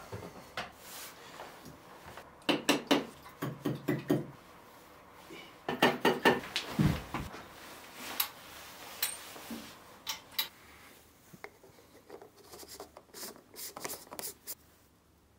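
Handling noise in a small room: knocks, rubs and clatter of things being moved on a wooden table and around light-stand gear, in two quick flurries a few seconds in, then scattered lighter clicks and taps.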